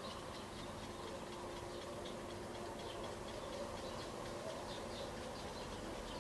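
Garden ambience: a steady low hum with faint, short high-pitched chirps repeating about twice a second.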